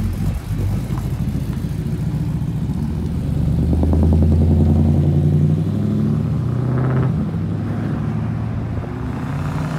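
Lowered single-cab pickup truck's engine revving as it pulls away and accelerates off, rising and loudest about four to five seconds in, with a second rev near seven seconds.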